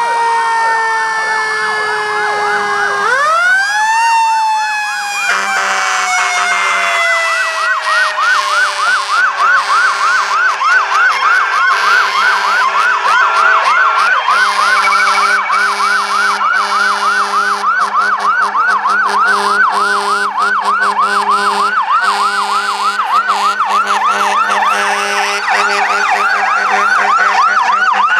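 Emergency vehicle sirens. One siren falls in a long, smooth wail, rises briefly about three seconds in, then coasts slowly down. From about five seconds in, an electronic siren yelps fast and steadily over it.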